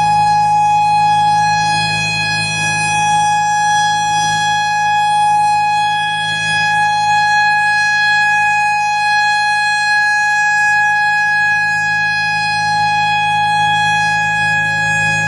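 Federal Enterprises Thunderbolt 1000 civil defense siren with jailbar chopper, sounding at full speed: one steady, loud tone with many overtones and no rise or fall in pitch. A low hum runs under it, and the level wavers only slightly.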